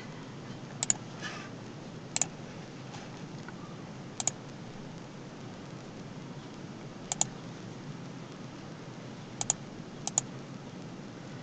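Scattered clicks at a computer, about six over the stretch, several of them quick double clicks, over a faint steady hiss.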